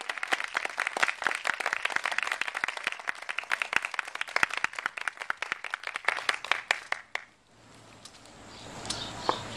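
Audience applause: many hands clapping in a dense patter that cuts off suddenly about seven seconds in.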